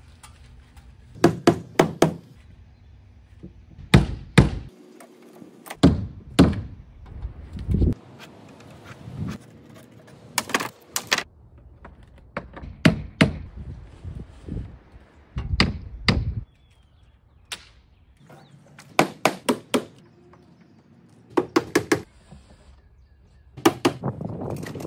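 Hammer driving nails into wood, in short runs of three or four quick blows with pauses between.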